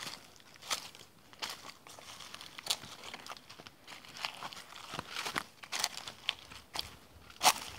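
Footsteps crunching on a dry dirt track strewn with dead leaves and twigs, one step about every half second to second, the loudest near the end.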